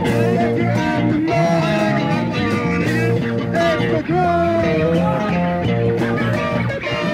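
Rock music played by a band: electric guitar and bass over drums, with a wavering, gliding melodic line on top.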